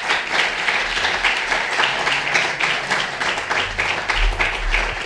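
Audience applauding: many hands clapping together without a break.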